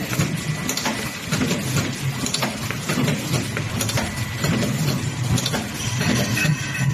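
Drip coffee bag packaging machine running, with a steady hum under a quick, uneven run of clicks and clacks from its mechanism.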